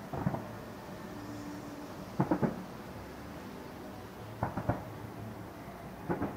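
Aerial firework shells bursting in quick clusters of two to four bangs, a cluster about every two seconds, each bang with a short echoing tail.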